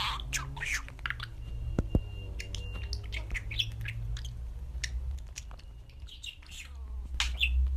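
Pet budgerigar chirping and chattering in short, high, scratchy calls with a few brief whistled notes, and two sharp clicks about two seconds in, over a steady low hum.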